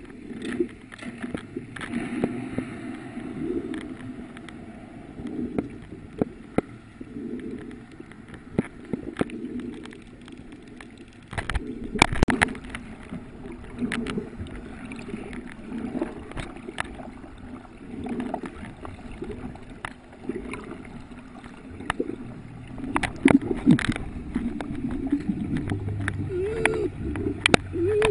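Muffled underwater sound picked up by a submerged camera: water gurgling and sloshing around the microphone, with scattered sharp clicks and knocks, a cluster of them about twelve seconds in and again near the end.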